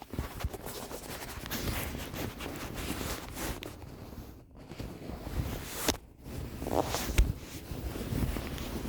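Microphone handling noise: rustling and scraping against the body or clothes, with scattered clicks and dull low thumps. It starts suddenly and cuts out briefly twice, about halfway through.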